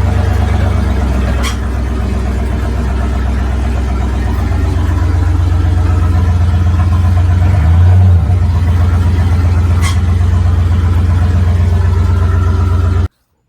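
Chevy 350 small-block V8 running steadily, with a brief rise in revs about eight seconds in. It cuts off suddenly near the end.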